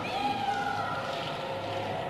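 Eerie wailing tones that glide in pitch, fading after about a second into a steady rushing, wind-like noise: a radio drama's atmospheric sound effect.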